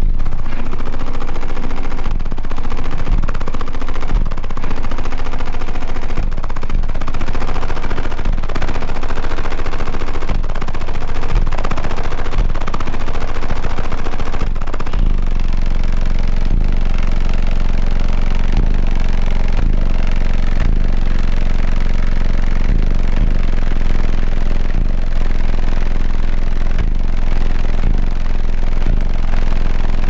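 A competition car audio subwoofer system plays bass-heavy music at extreme volume inside the car's cabin, coming through heavily distorted as a dense crackling rattle. About halfway through, the deep bass settles into steadier held notes.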